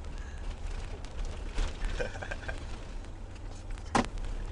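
Low steady rumble of a vehicle driving, with faint voices about two seconds in and a sharp click near the end.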